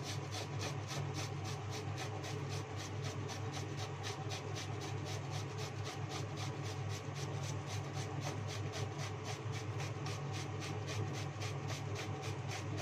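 A small Japanese cucumber being grated on a stainless steel box grater, with quick, even rasping strokes several times a second. A steady low hum runs underneath.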